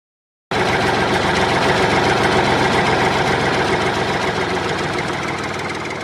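A heavy machine's engine running steadily with a fast, even pulse. It cuts in abruptly about half a second in and slowly fades near the end.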